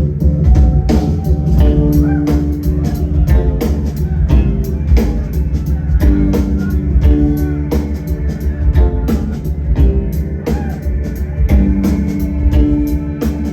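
Live rock band playing an instrumental passage without vocals: electric guitar and bass over a steady drum-kit beat.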